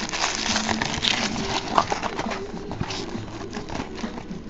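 Hands handling a small cardboard trading-card box and its foil card pack: a run of light taps, scrapes and papery rustles.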